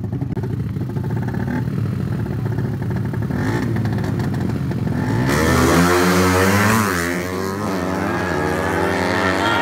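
Two four-stroke racing motorcycles, a big-bore Yamaha Vega and a ported Suzuki Satria FU, running on the start line. About five seconds in they launch hard, and the engines rise in pitch and drop back with each gear change as they pull away.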